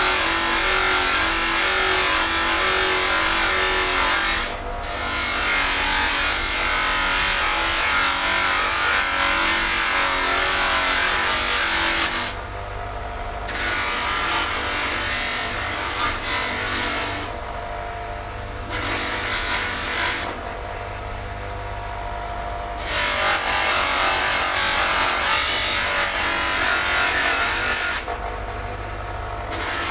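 Bench buffing machine running, with a plastic headlight lens pressed against its spinning cloth buffing wheel. The rubbing hiss of lens on wheel drops away several times for a second or two, leaving the motor's hum.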